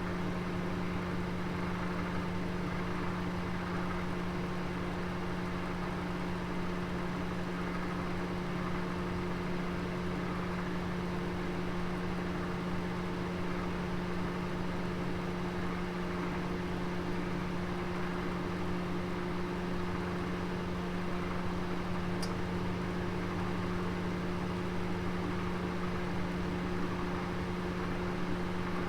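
Oven running with a roast inside, giving a steady, even hum over a soft whooshing noise, with one faint tick near the end.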